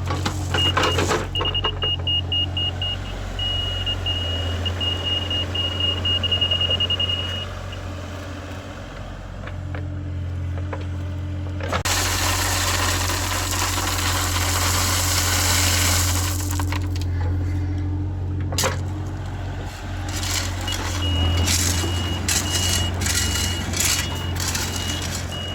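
Heavy equipment engine running steadily, with a high-pitched backup alarm beeping for several seconds near the start and again near the end. A loud rushing noise lasts about four seconds midway.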